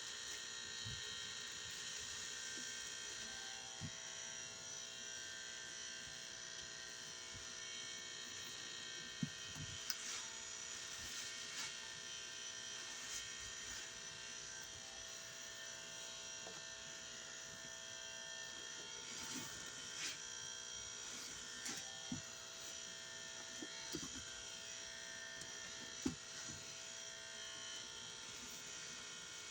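A steady electrical buzz of several held tones, with soft, scattered clicks and squelches from a soapy sponge being squeezed.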